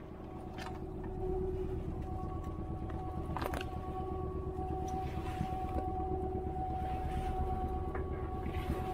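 Small fishing boat's engine running steadily, a low rumble with a steady hum over it, with a few light knocks.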